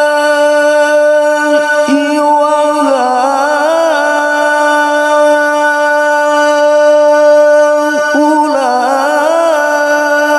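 A male qari's amplified voice in melodic Quranic recitation (tilawah), holding long, high steady notes. Twice there is a brief break for breath, followed by quick wavering melismatic turns before the note settles again.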